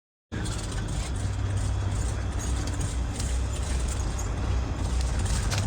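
A steady, low rumbling vehicle engine sound effect that starts abruptly a moment in, with scattered faint clicks over it.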